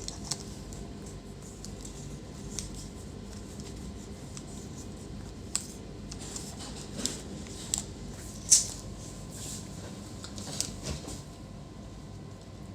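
Light, irregular clicks and taps of hands handling laptop parts while a replacement display panel is fitted, with one sharper click about two thirds of the way through, over a steady low background hum.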